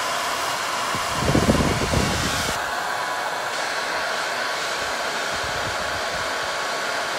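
Handheld hair dryer running on high, a steady rush of air with a faint motor whine. About a second in there is a brief low rumble lasting about a second and a half as the dryer is moved, after which the hiss sounds duller.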